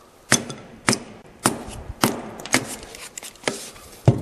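Kindling being chopped from scraps of 2x4: a blade strikes the wood against a wooden board in sharp, repeated chops, about two a second.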